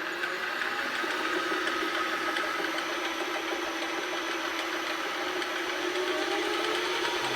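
AL960B metal lathe running under power, driven through belt and pulleys by its newly mounted VFD-controlled motor: a steady mechanical running sound with several steady tones, unchanging throughout.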